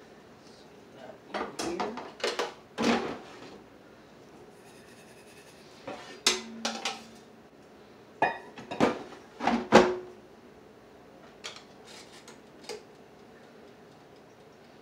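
Cookware and utensils clattering in a kitchen: bursts of sharp knocks and clanks, the loudest about ten seconds in, with a few fainter taps near the end.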